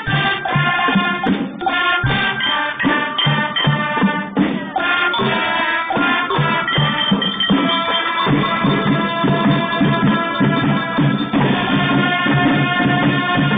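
Marching band playing: short, accented chords over drum hits, then long held chords from about eight seconds in.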